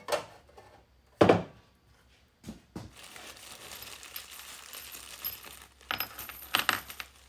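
Small metal hardware such as bolts and washers clinking and clattering as it is handled, with one loud knock about a second in and a run of clicks near the end.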